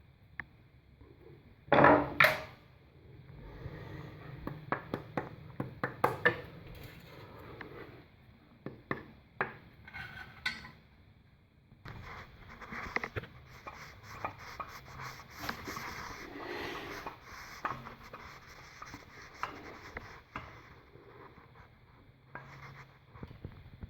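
Hand work on a wall bracket: two loud knocks, then a run of lighter taps and clicks, then a longer stretch of scraping and rubbing with scattered clicks.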